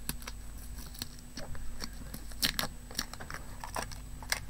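Wrapping and seals being torn and peeled off a pad of 8x8 craft paper by hand: irregular crinkling and crackling, sharpest about two and a half seconds in and again near the end.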